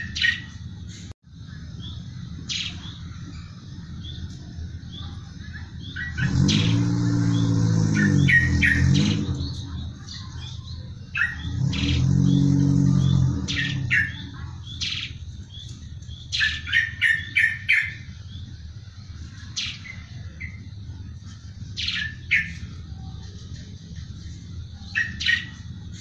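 Caged sparrow chirping: short, sharp chirps now and then, with a quick run of several chirps about two-thirds of the way in. A low hum swells in twice in the first half, for about three seconds each time.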